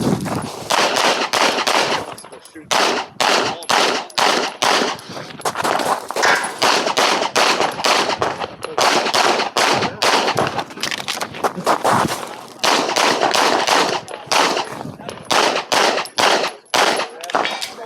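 Handgun fired in rapid strings of shots, dozens in all, with brief pauses between strings.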